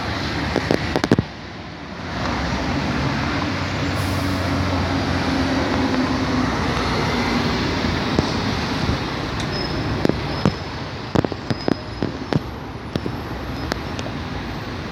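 Road traffic passing close by on a busy street, a vehicle's engine hum swelling and passing over several seconds. A run of sharp clicks follows near the end.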